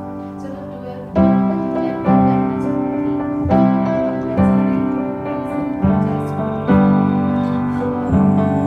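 Background music: piano chords struck about once a second, each ringing on and fading before the next.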